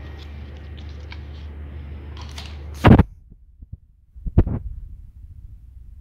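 A steady low hum, cut off by a loud knock about three seconds in, then a second knock about a second and a half later.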